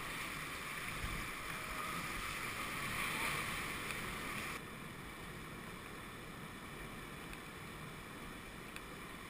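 Steady rush of river whitewater around a raft, with some splashing of waves against it. The sound drops abruptly to a quieter, calmer rush about four and a half seconds in.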